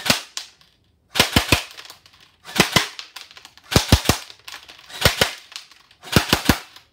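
M4A1 electric airsoft gun (AEG) firing short full-auto bursts, six bursts of two or three quick shots each, a little over a second apart.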